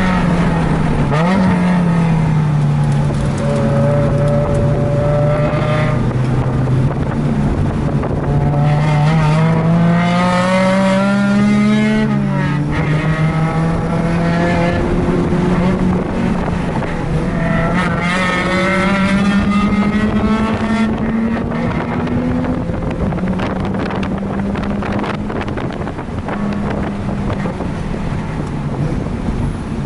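Mazda RX-8's twin-rotor rotary engine pulling hard on track. Its pitch climbs under acceleration, drops sharply about twelve seconds in, climbs again, then falls near the end. Heavy wind noise buffets the microphone throughout.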